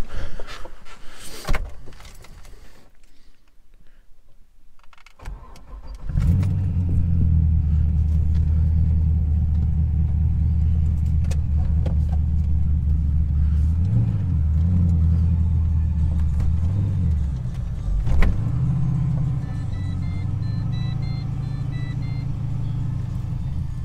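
Holden VY Commodore SS's 5.7-litre LS1 V8 starts about five seconds in and runs steadily through its split dual exhaust, its pitch dipping and rising slightly twice as the car is moved. There is a sharp click a few seconds later, and a string of short electronic beeps sounds near the end.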